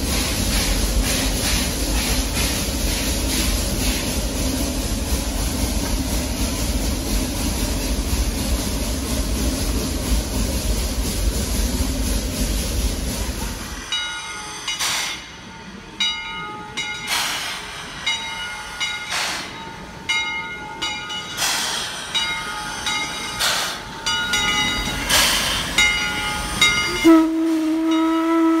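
Steam locomotive working steadily with rapid, even exhaust beats. It changes abruptly about halfway to sharper puffs of steam roughly every two seconds, and a steam whistle blows one steady tone near the end.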